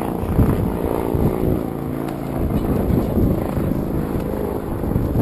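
A motor's steady drone: a low hum with several even overtones, with uneven low rumble over it.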